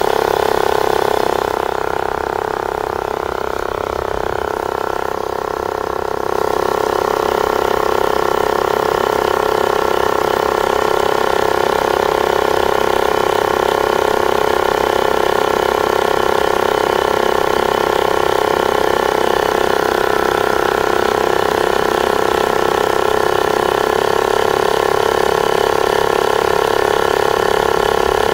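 Portable electric tyre inflator's compressor running steadily as it pumps up a car tyre, a loud even mechanical hum, a little quieter for a few seconds near the start.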